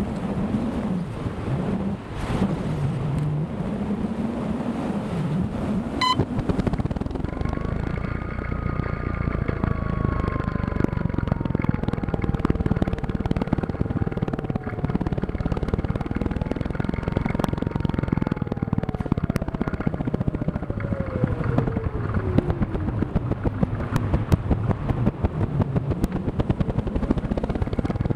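Onboard sound of a radio-controlled model plane in flight: wind rushing and buffeting over the microphone, then from several seconds in a motor whine that slowly rises and falls in pitch, dropping steadily before climbing again near the end, over a constant fast vibration crackle.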